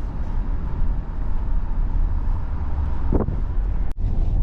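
A car driving, with a steady low road-and-engine rumble. A brief pitched sound rises about three seconds in, and the sound cuts out for an instant just before the end.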